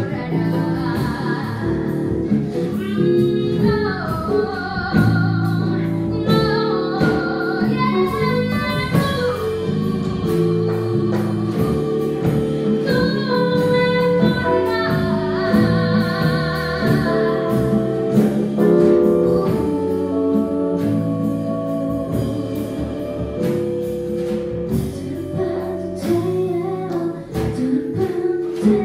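Live jazz-fusion band playing, with female voices singing over piano, bass, percussion and drum kit.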